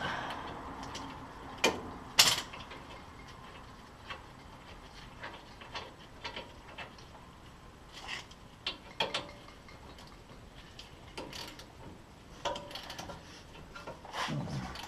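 Scattered metal clicks and clinks of hand tools working on a truck's front wheel hub, with two sharper knocks about two seconds in and small clusters of clicks later.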